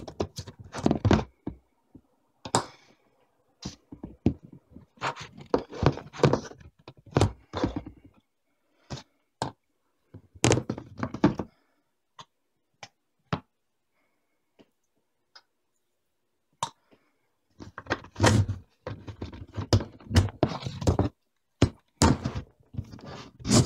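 PVC pipe sections and fittings knocking and clacking against each other and the work surface as a 3/4-inch pipe frame is handled and pressed together. The thunks come in irregular clusters, with a quieter stretch of a few seconds about halfway through.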